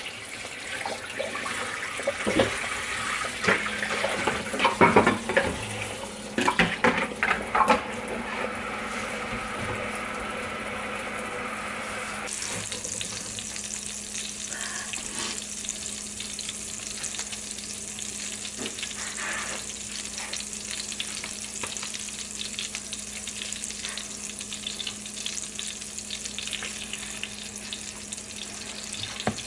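Tap water running into a kitchen sink while a frying pan is washed, with loud clatters of the pan between about two and eight seconds in. About twelve seconds in this gives way to hot oil sizzling steadily in a nonstick frying pan, and near the end a ground-meat patty is pressed into the oil.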